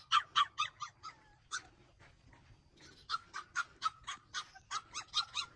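A dog barking in a rapid string of short, sharp yaps, about six a second. It breaks off for about two seconds near the middle, then starts again.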